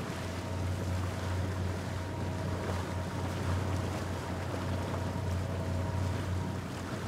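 Outboard motor of a small aluminium boat running steadily under way, a constant low drone, with water rushing along the hull and wind on the microphone.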